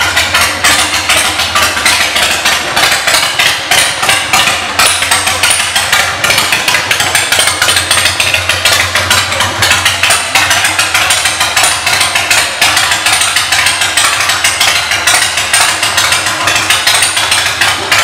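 2003 Harley-Davidson Dyna Low Rider's Twin Cam 88 V-twin running at idle through aftermarket exhaust pipes: a loud, steady, rapid run of exhaust pulses.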